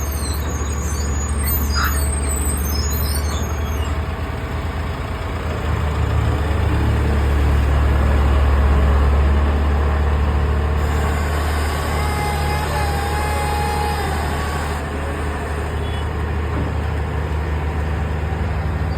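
Heavy diesel engine running steadily, a loud low drone that swells slightly around the middle.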